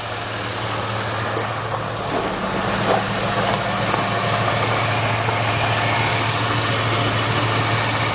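1989 Lincoln Town Car's 5.0-litre (302) V8 idling steadily, on a car with an exhaust leak.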